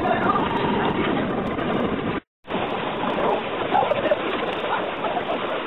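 Steady road and engine noise inside a moving car, cut off abruptly about two seconds in; then the rush of river rapids around an inflatable raft.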